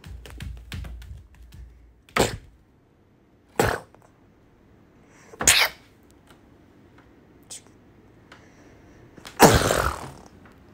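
Homemade mouth-made sound effects: a few short, breathy bursts about two seconds apart, then a longer, louder burst near the end standing in for a TNT explosion.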